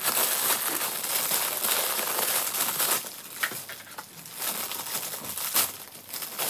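Clear plastic packaging crinkling and rustling as a small part is unwrapped by hand. It is densest for the first three seconds, then thins to scattered rustles and clicks.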